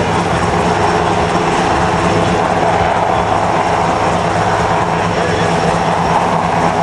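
Coast Guard MH-60 helicopter in flight, its rotors and twin turboshaft engines making a loud, steady drone.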